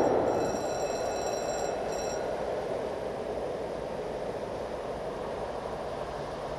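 Train noise fading away over the first second into a steady distant rumble, with a thin high ringing of several tones from about half a second to two seconds in.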